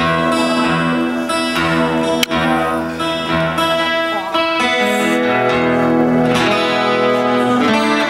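Amplified acoustic guitar played live, a slow run of ringing chords that change every second or so.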